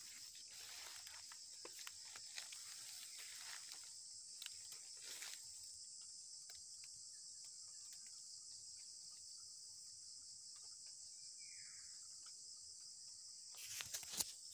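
Steady, high-pitched chorus of insects in rural vegetation, with one short falling whistle-like call about twelve seconds in and a short burst of louder noise near the end.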